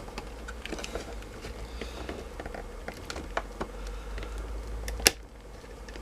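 Plastic casing of a laptop battery pack being cut along its edges: a string of small irregular scratching clicks, with one sharp, louder click about five seconds in.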